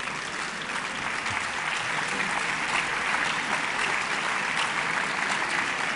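Audience applauding: many hands clapping, swelling over the first couple of seconds and then holding steady.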